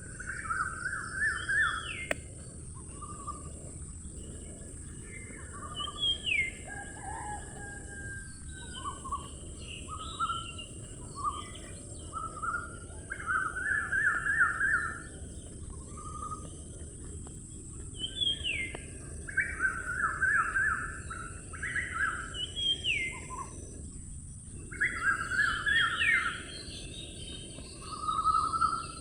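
Birds singing: repeated short trilled chirp phrases and quick rising whistles, over a steady high-pitched hiss.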